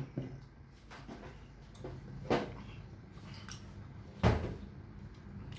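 Close-up eating sounds of a person chewing a soft piece of cooked banana, with two sharp smacks or clicks about two and four seconds in, over a low steady hum.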